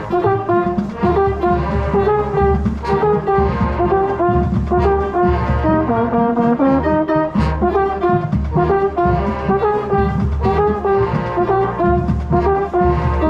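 High-school marching band playing, with brass chords over a steady drum beat, heard from close beside a mellophone.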